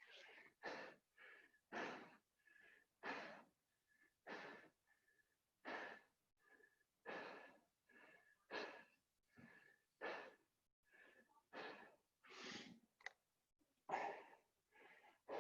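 A person breathing hard and rhythmically from the exertion of doing burpees, a faint breath about every second and a half.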